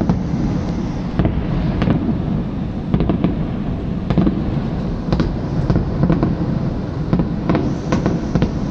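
Aerial fireworks bursting, a run of sharp bangs at irregular intervals over a steady low rumble.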